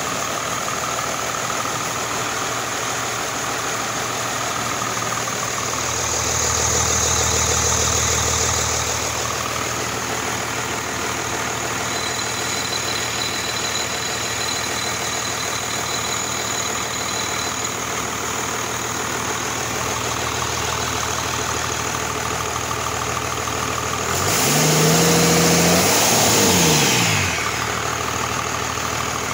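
1993 Cummins 6BT 5.9L turbo inline-six diesel with an inline P-pump, test-run out of the vehicle and mostly idling steadily. About six seconds in it speeds up for a few seconds. Near the end it is revved sharply up and back down.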